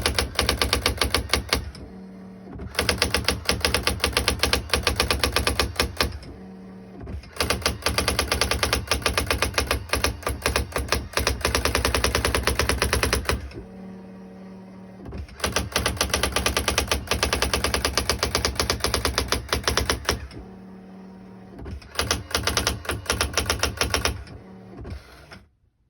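Brother GX-7500 electronic daisy-wheel typewriter printing in runs of rapid, even strikes of the print wheel. Four times the strikes stop for a second or two while a steady motor whine sounds, as the carriage returns for a new line. A few short bursts of strikes come near the end.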